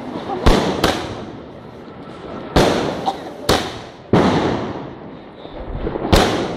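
A 120-shot firework cake firing, with about six loud bangs at uneven intervals of half a second to two seconds, each dying away slowly.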